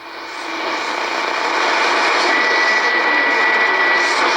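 Shortwave radio receiver's static hiss while tuning between stations on the 19-meter band. It swells up over the first second, and a thin steady whistle sounds from about halfway in until near the end.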